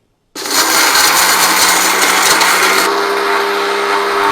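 Electric kitchen mixer grinder (mixie) running in one short burst, grinding coarsely pounded dry spices and herbs: long pepper, black pepper, liquorice root and dry ginger. It starts suddenly about half a second in, its rattle eases slightly near three seconds in, and it then stops abruptly.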